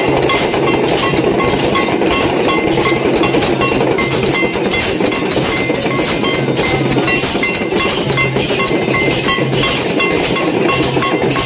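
Brass temple hand bell (ghanti) rung rapidly and without pause during aarti, a dense metallic clanging with ringing overtones.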